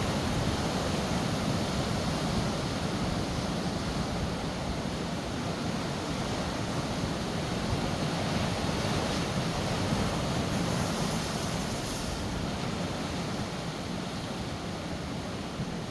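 Sea surf: waves breaking and washing in a continuous rush, swelling and easing slowly, with a brief brighter hiss of wash about eleven seconds in.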